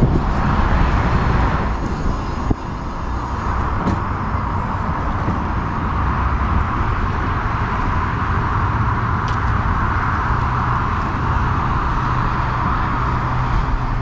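Amysystems R3 power wheelchair rolling along pavement: a steady rumble of wheels and drive motors, with a few faint ticks.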